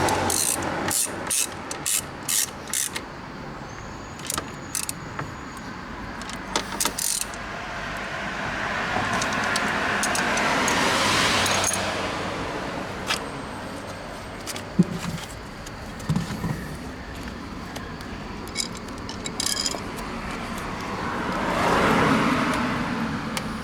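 Runs of sharp metallic clicks and clinks, a few a second, over the background of road traffic. A passing vehicle swells up and fades away twice, the first about ten seconds in and the second near the end.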